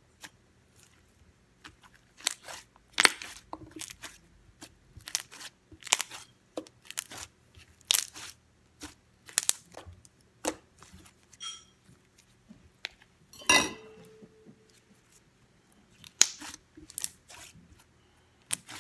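Sticky white glue-and-borax slime being pressed and pulled apart by hand, giving irregular sharp pops and crackles, about one or two a second, with a longer crackle about two-thirds of the way through. The slime is still a little sticky.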